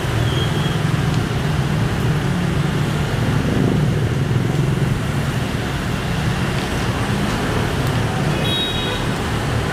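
Steady street traffic, a continuous low rumble of passing vehicles, with a brief high beep near the end.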